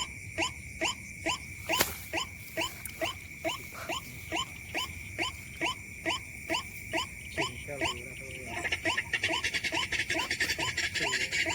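White-breasted waterhen calling its rhythmic croaking call over and over, about three calls a second, with a steady high buzz of insects behind it. Near the end a denser, louder chirring insect chorus comes in.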